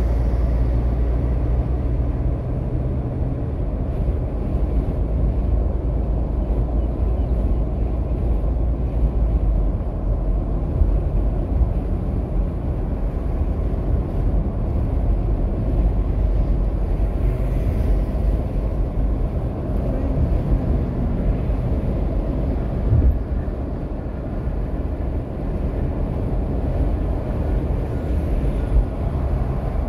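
Steady low rumble of a car's engine and tyres on the road, heard from inside the cabin at highway speed.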